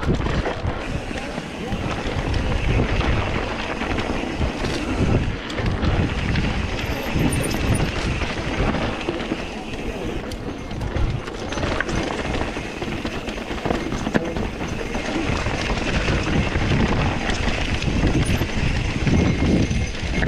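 Mountain bike rolling down a rough dirt and rock singletrack: a steady rumbling rattle of tyres, frame and components over the stones, with a few sharp knocks from bigger hits.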